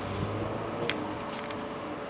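A few light clicks of small lamp parts and a tool being handled during the teardown, over a steady background hum.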